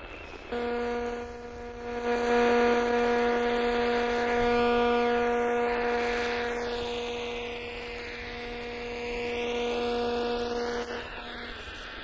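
Portable radio receiver tuned to the 225 kHz longwave band, its speaker giving a steady, loud buzz of interference with a hiss behind it instead of the station. The buzz starts about half a second in and cuts off about a second before the end.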